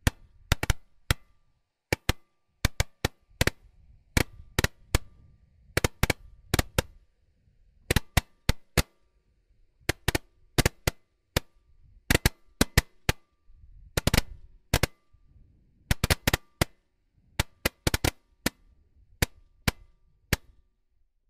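World Class Fireworks 'Flamethrower', a single-tube 70-shot repeater firework, firing shot after shot: sharp pops, often two or three close together, with short pauses between the clusters.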